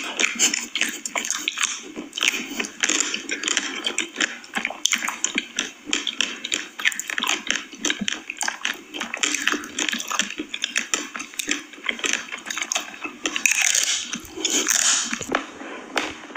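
Close-miked ASMR eating sounds of ice cream: wet mouth smacking and chewing, with a dense run of small clicks.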